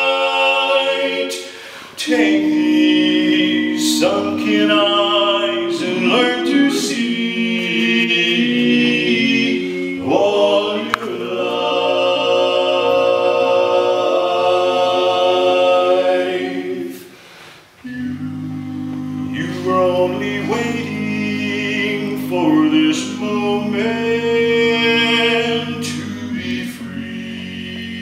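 Male barbershop quartet singing a cappella in four-part close harmony, holding long chords with two short breaks between phrases.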